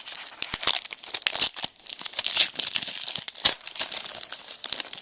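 Trading-card pack wrapper being torn open and crinkled by hand, a dense run of crackling and rustling.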